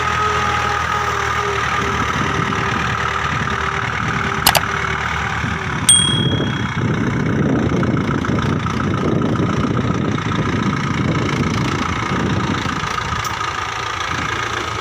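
Mahindra 475 DI tractor's 42 HP diesel engine running steadily under load, pulling a super seeder through the field. A sharp metallic clink rings out about six seconds in, the loudest moment, after a smaller click a second and a half before.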